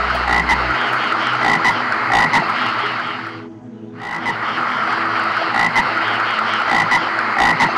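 A dense, continuous chorus of many animal calls, which cuts out briefly about three and a half seconds in and then resumes.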